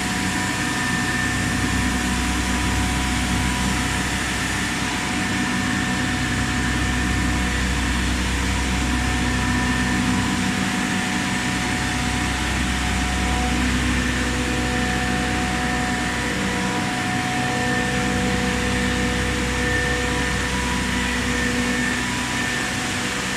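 75-ton air-cooled chiller with a Hanbell screw compressor running steadily: an even mechanical rush from the compressor and condenser fans, with several steady whining tones held over a low hum.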